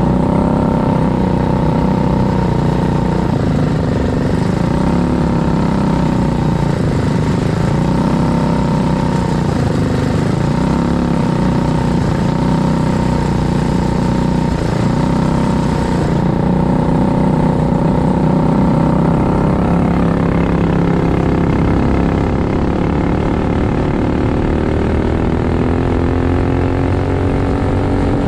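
Racing kart's engine at full race pace, recorded onboard. Its pitch repeatedly dips and climbs again every couple of seconds as the driver lifts and gets back on the throttle through the corners.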